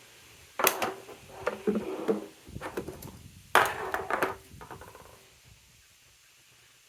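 Metal parts and hand tools clattering and knocking on a bench. Two sharper knocks, about half a second and three and a half seconds in, ring briefly, with smaller clicks between them. The clatter stops about five seconds in.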